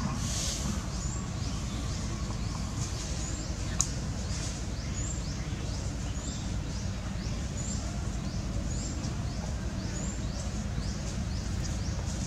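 A bird calling in a fast repeated series of short rising chirps, about three every two seconds, over a steady low outdoor rumble. One sharp click comes about four seconds in.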